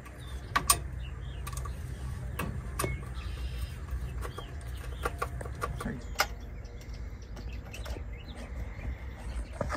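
Scattered small clicks and taps of a screwdriver working the terminal screws and wires in a pool booster pump's motor wiring box, over a steady low hum.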